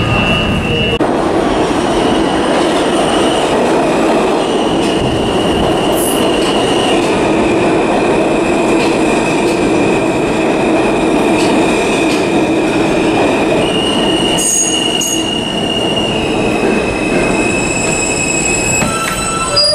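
New York City subway train running into an underground station, its steel wheels squealing in a high steady pitch that shifts in steps over the rumble and clatter of the cars.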